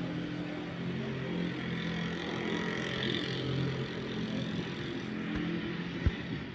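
A dump truck's diesel engine running steadily, with a brief knock about six seconds in.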